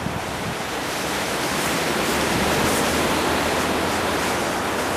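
Wind gusting over the microphone: a steady rushing noise that swells a little in the middle.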